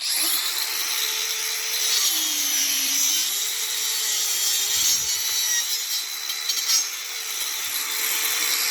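DeWalt DCG405FN cordless angle grinder with a Bosch wood-cutting disc, sawing through wood. The motor's pitch drops between about two and three seconds in as the disc bites under load, then climbs back and holds steady for the rest of the cut.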